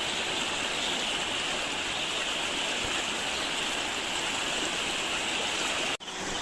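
Steady rush of flowing water, an even unbroken hiss with no separate splashes.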